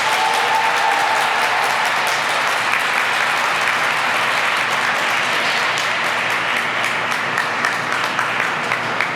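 Audience applauding, a dense patter of clapping, with the last of the program music fading out in the first second.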